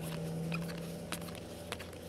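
Baseball trading cards being handled and slid off a stack one by one, giving a few faint, short clicks and rustles. A steady low hum sits under them and fades about halfway through.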